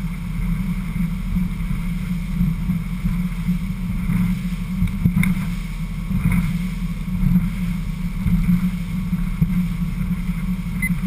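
Steady rumble of a fishing boat running at speed under a Mercury Verado outboard, mixed with wind and water noise.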